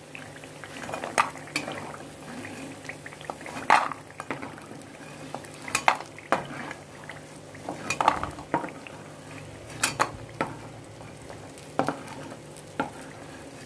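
Metal spoon clinking and scraping against a kadai as fried lentil dumplings (badi) are scooped out of hot mustard oil: a sharp clink every second or two over a faint sizzle of the oil.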